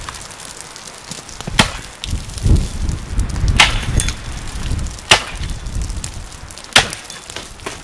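Axe chopping into the trunk of a dead, dry spruce tree: four sharp blows, about one and a half seconds apart.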